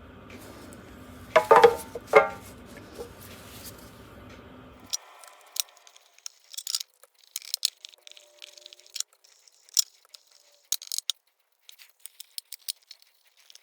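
Small metal tins being handled and set in place: two louder clanks about a second and a half in, then a run of light clicks and taps.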